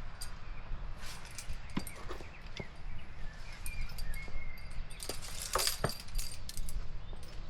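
Scattered sharp clicks and clinks, densest about five to six seconds in, over a low rumble of wind on the microphone, with a few faint bird chirps.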